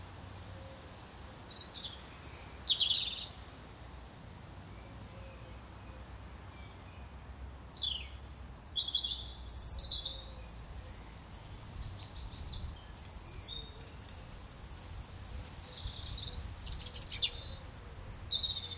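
European robin singing: several short, high, thin phrases a few seconds apart, with runs of quick repeated notes in the middle and a bright phrase near the end.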